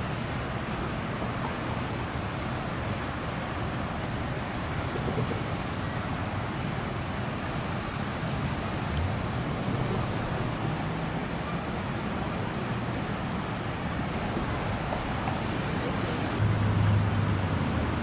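Steady outdoor background noise, an even rush with no distinct events, getting louder with a low hum near the end.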